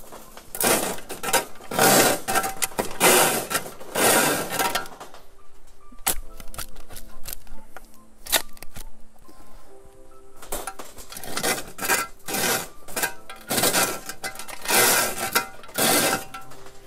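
A spade working compost across a wire-mesh sieve laid over a corrugated metal sheet: two long spells of gritty scraping and rattling. Between them, a couple of sharp knocks as the spade digs into the compost heap.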